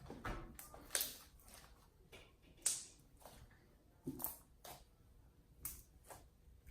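Slime being stretched and pulled apart by hand, giving irregular sticky clicks and snaps, the loudest a little under three seconds in.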